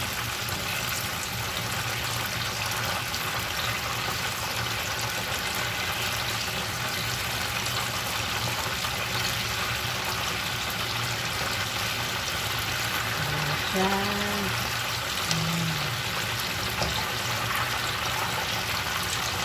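Battered chicken pieces deep-frying in a pan of hot oil: a steady, even bubbling sizzle.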